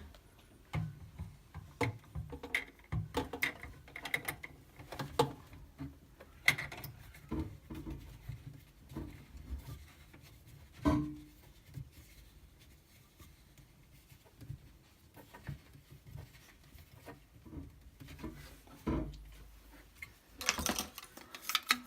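Handling noise from the Red Sea Reefer 250's plastic plumbing pipes as they are fitted into the sump compartment: scattered light clicks and knocks of pipe against pipe and cabinet, with one sharper knock about halfway through and a louder scrape near the end.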